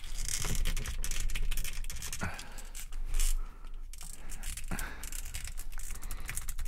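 Small plastic action figure parts clicking, rattling and scraping under the hands as a head is pushed and twisted onto the figure's neck peg, in a run of close, irregular clicks.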